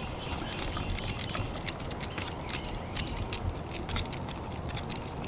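Small, irregular clicks and ticks of a hex screwdriver working a set screw out of an RC truck's front A-arm.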